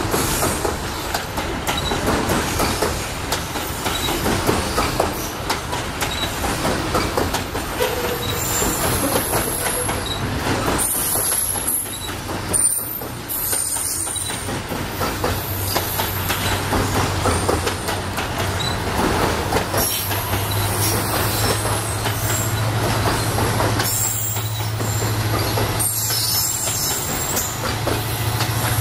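Freight train's cars rolling past close by: a steady rumble and rattle of wheels on the rail, with thin high-pitched wheel squeals coming and going in the middle and again near the end, over a low steady hum that grows stronger about halfway through.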